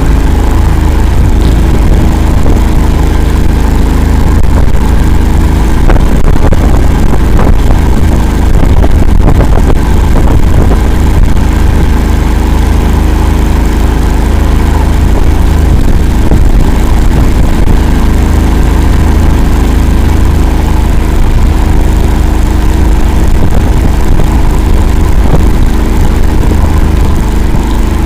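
Akula all-terrain vehicle's engine running steadily and loudly as the vehicle drives through a bog, with no marked changes in revs.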